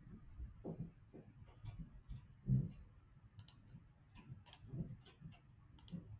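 Irregular soft clicks of a computer mouse and keyboard, with a louder low thump about two and a half seconds in.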